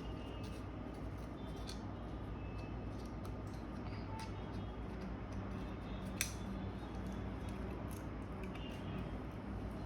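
Small metallic clicks and ticks of a screwdriver driving Torx mounting screws into a laptop SSD, with one sharper click about six seconds in. A steady low hum runs underneath.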